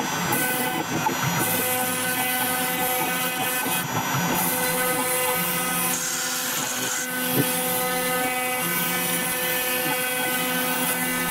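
CNC router spindle at 20,000 rpm milling 2 mm FR4 glass-fibre board with a 2 mm diamond-cut carbide end mill, with the dust extraction running. A steady, even machine whine with hiss over it.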